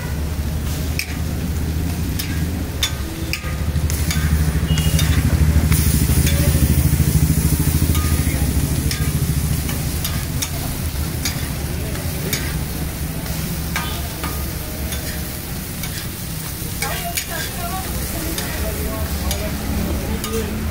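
A metal spatula scrapes and taps on a flat griddle while sponge dosas cook in butter with a light sizzle, giving repeated scattered clicks and scrapes. A steady low rumble runs underneath; it swells about four seconds in and eases off after about nine seconds.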